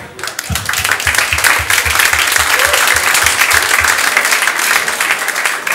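Audience applauding in a crowd, building up over the first second and easing off near the end.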